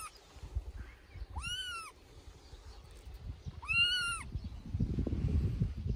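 Three-week-old kitten meowing loudly, two high calls about two seconds apart, each rising and then falling in pitch. A low rumbling noise comes in near the end.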